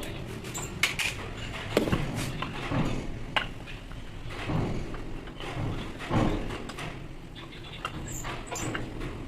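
Parts and hand tools being handled while a rotary hammer is taken apart: irregular clicks, knocks and scraping, a few sharper knocks at times.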